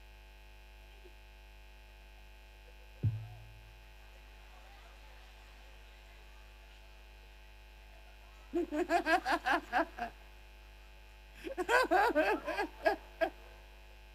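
Steady mains hum from a PA sound system, with a single dull thump about three seconds in. In the second half, two bursts of rapid, pulsing laughter come through the microphone.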